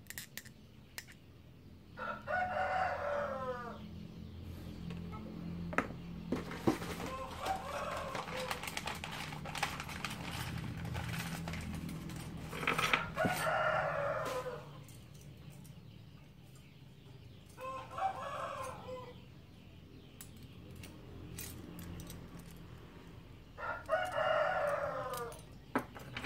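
Rooster crowing several times, each crow about a second and a half long, with scattered small clicks of plastic toys being handled on a wooden table.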